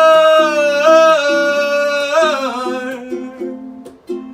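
Live song: a singer holds one long sung note over a strummed acoustic string instrument, with a short step up in pitch about a second in and a slide down past the middle. After that the strumming carries on alone.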